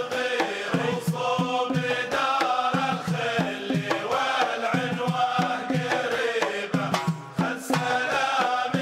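Music: a voice singing in a chant-like line over a steady drum beat.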